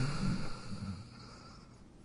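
A sleeping dog's snoring breath trailing off, fading out over about the first second, then a quiet pause between snores.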